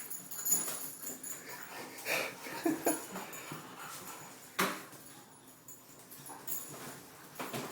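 English bulldog puppies playing, making short vocal sounds amid scuffling, with one sharp knock about halfway through.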